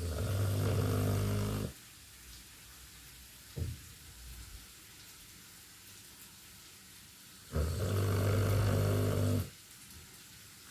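Dog snoring in its sleep: two long snores, each just under two seconds, about seven and a half seconds apart, with a brief sharp sound between them about three and a half seconds in.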